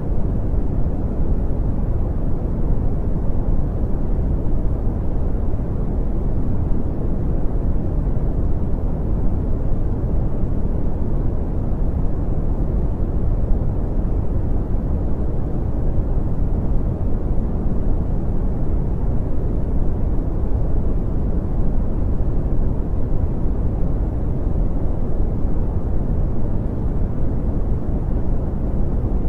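Brown noise: a steady, deep rumbling hiss, strongest in the bass and fading toward the treble, with no changes.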